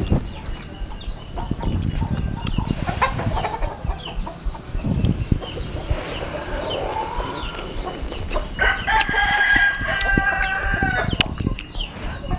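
A rooster crows once, a single long call of about two and a half seconds starting roughly two-thirds of the way through. Close, wet chewing and lip-smacking from someone eating by hand runs throughout.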